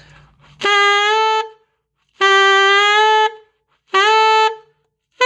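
Saxophone playing three separate tongued scoops: each note starts flat and bends up to pitch before being held briefly, and a fourth scoop begins right at the end.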